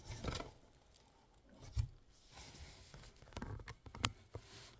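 Packaging being handled and opened by hand: scattered light rustling, taps and clicks, with a dull thud about two seconds in and a sharp click near the end.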